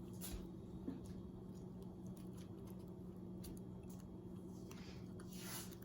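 Faint rustling and crinkling of tape and craft pieces being handled, a few soft brief strokes over a steady low hum.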